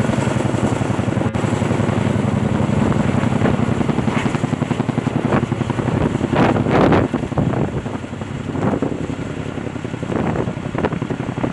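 Chinook tandem-rotor heavy-lift helicopter hovering overhead with a log slung below it, its rotors giving a loud, fast, steady beat. A brief louder rush comes about six to seven seconds in.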